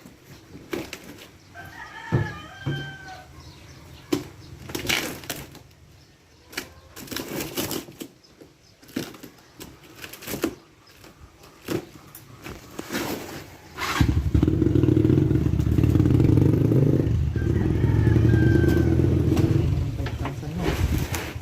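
Scattered clicks and knocks of handling, with a rooster crowing. About two-thirds of the way in, a loud, steady low engine or motor hum starts and keeps running.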